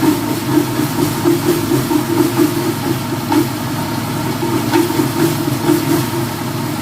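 Power Craft 3 hp air compressor running with a chug-chug knocking from inside, a fault that appeared after only a month of use. The loudness rises and falls in a regular pulse.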